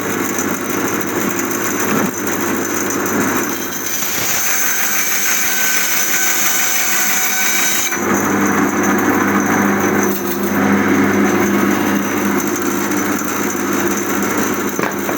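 Homemade electric band saw with 406 mm rubber-tyred wheels and a wide sawmill blade running while ripping a small log, without bogging down. Its sound turns brighter and hissier from about four to eight seconds in, then settles back to a lower, steady hum.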